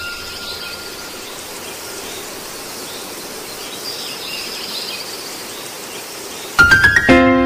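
Steady airy hiss of an intro soundtrack with faint high warbling. About six and a half seconds in, a quick run of rising notes leads into a sustained ringing chord as the music begins.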